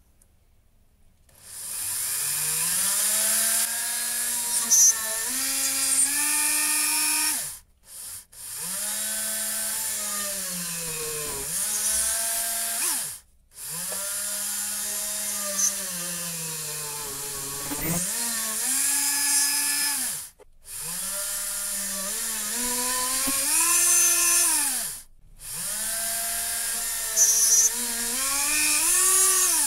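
Flex-shaft rotary tool drilling holes in a brass ring on the lathe. The motor's whine rises and sags as the bit bites, in about five runs separated by short stops.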